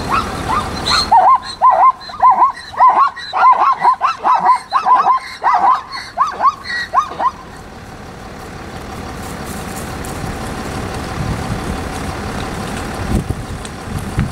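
Plains zebra barking: a rapid series of yelping barks lasting about six seconds, the alarm call zebras give at predators. A vehicle engine idles underneath, coming back up after the barking stops.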